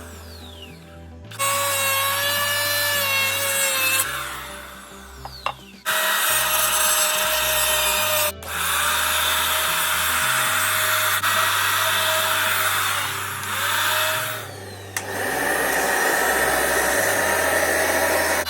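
Electric power tool running in long bursts, with a steady motor whine. Twice it is switched off and its whine falls in pitch as the motor winds down, then it starts up again. A music bass line plays underneath.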